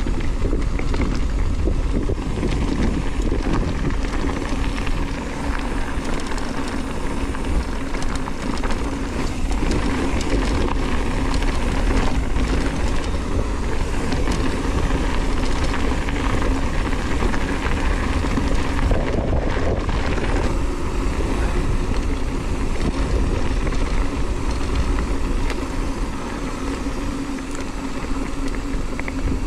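Mountain bike rolling downhill on a loose gravel road: tyres crunching over the stones and the bike rattling over the bumps, with wind on the camera microphone, in a steady loud roar.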